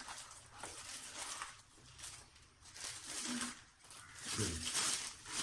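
Plastic wrapping rustling and crinkling in several bursts as a massage gun is handled and lifted out of its box.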